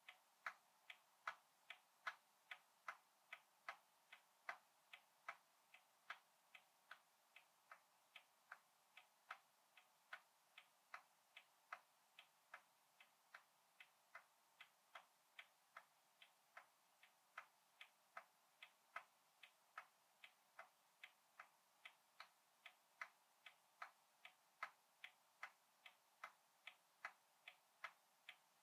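A roughly 100-year-old clock ticking quietly and evenly, about three ticks a second.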